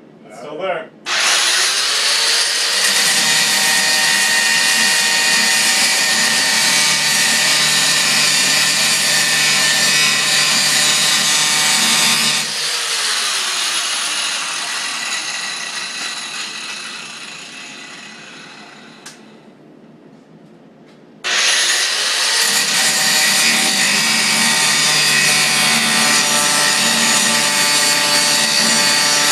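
Angle grinder spinning up about a second in and grinding through a quarter-inch steel bolt, its motor dropping in pitch under the load. About twelve seconds in it is switched off and winds down slowly over several seconds. It starts again with a sudden rise about twenty-one seconds in and keeps cutting.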